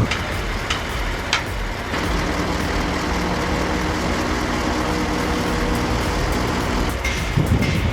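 Heavy machine engine running steadily at an even pitch, with two short high-pitched squeals within the first second and a half.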